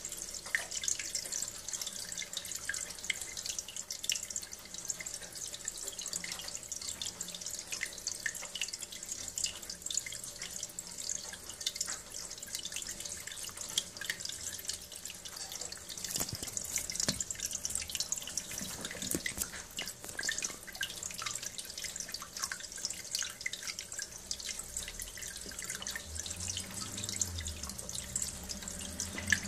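Brown, sludge-laden flushing water pouring steadily from a hose into a plastic container, splashing and trickling, as a central heating circuit is flushed out during desludging. A low hum comes in near the end.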